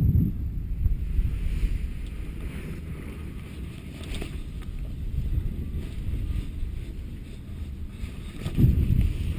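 Wind buffeting the microphone of a body-mounted camera in gusts, a low rumble that swells at the start and again near the end, while a paraglider wing is raised overhead in the wind for launch.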